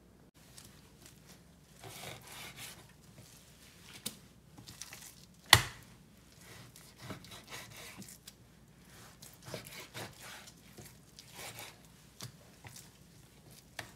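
Knife cutting raw meat into pieces on a cutting board: scattered slicing and scraping strokes, with one sharp knock about five and a half seconds in.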